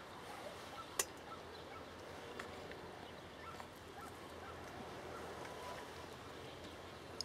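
Faint outdoor background hush with a few sharp clicks, the loudest about a second in.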